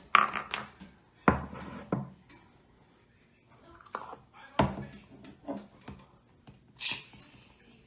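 Several knocks and clinks of containers and utensils handled on a table, then a short hiss near the end as an aerosol can dispenses shaving cream.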